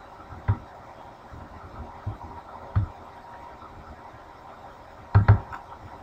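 Computer mouse clicks picked up by the desk microphone: single clicks about half a second in and near three seconds, then a quick, louder double click about five seconds in, over a faint steady hiss.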